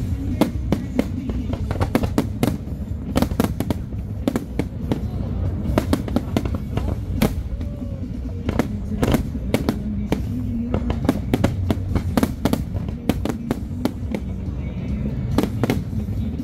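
Fireworks display: aerial shells bursting in quick, irregular succession, several bangs a second, over a steady low rumble.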